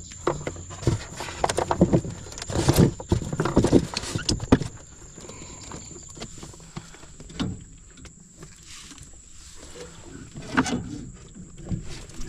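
Irregular knocks and clatter, busiest in the first few seconds and then only a few single knocks, as catfish are landed and handled in a small boat, over a steady high insect whine.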